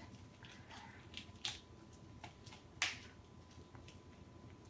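Small plastic toy blind-pack packaging being handled and opened by hand: faint crinkling with a few sharp clicks, the loudest near three seconds in.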